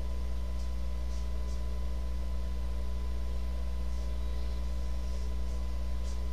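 Steady low electrical hum with a few faint steady tones above it, unchanging throughout; nothing else stands out.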